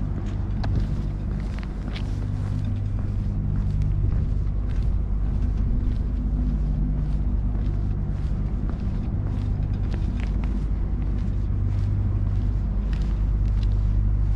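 Footsteps on pavement at a walking pace, about two steps a second, over a steady low engine hum.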